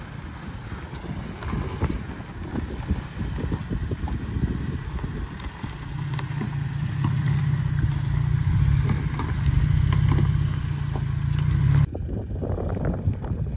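A 2023 Toyota Tacoma TRD Pro's 3.5-litre V6 pulling under load as the truck crawls over rock ledges in four-wheel drive. It grows steadier and louder from about halfway through, then drops away abruptly near the end. Wind buffets the microphone throughout.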